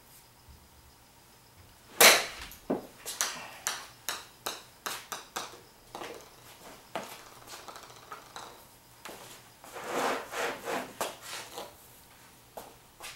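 Golf club striking a ball off a hitting mat: one sharp, loud crack about two seconds in, followed by a run of clicks coming quicker and fainter, like the ball bouncing to rest on a hard floor. A second cluster of lighter clicks and taps comes later.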